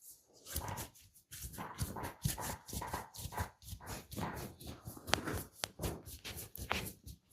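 Hands massaging bare skin: quick irregular rubbing, patting and slapping strokes, with a few sharp clicks in the second half.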